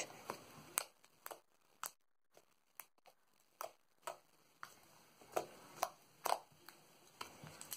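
A blob of mixed homemade slime squished and kneaded by hand, giving faint, irregular sharp clicks and pops, about a dozen over the span.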